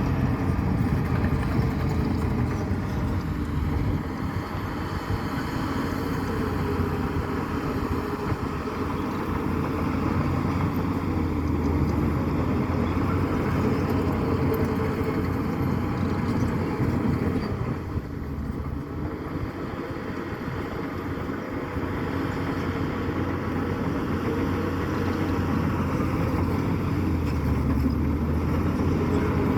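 Heavy diesel earthmoving machinery engine running steadily under work, easing off slightly about four seconds in and again around eighteen seconds, then picking back up.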